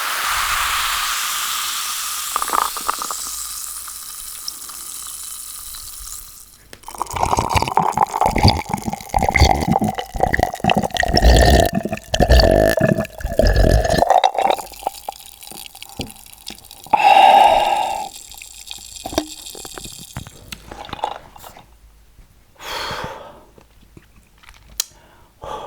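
Close-miked drinking sounds: a fizzing hiss, like a freshly poured carbonated drink, fading over the first six seconds, then a run of loud gulps for about seven seconds, and a short loud throat sound about 17 seconds in.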